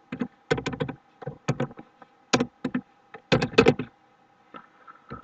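Typing on a computer keyboard: irregular key clicks in small quick clusters, with short pauses between them.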